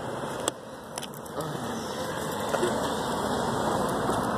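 Road traffic noise that grows louder from about a second and a half in, with two sharp clicks near the start.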